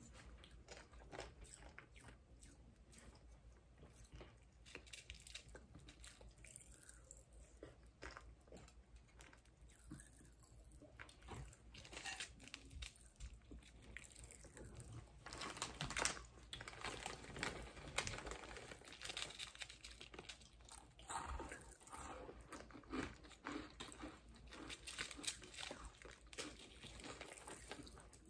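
Faint close-up eating sounds: candy being chewed and crunched, with many small clicks and crackles that grow busier in the second half. A candy wrapper crinkles near the end.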